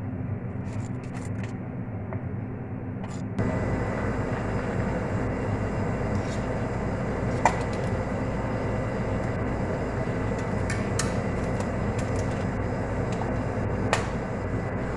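A steady hum that gets louder about three seconds in. Over it, a metal ladle clinks against an aluminium soup pot about halfway through, and a sharp metal clank near the end as the aluminium lid is set on the pot.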